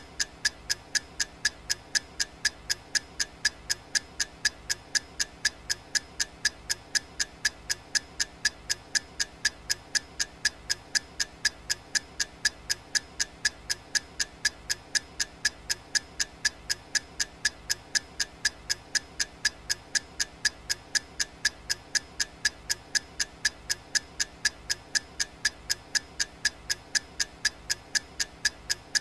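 Clock ticking sound effect: sharp, evenly spaced ticks at about two a second, each with a bright ringing click, keeping time for a countdown timer.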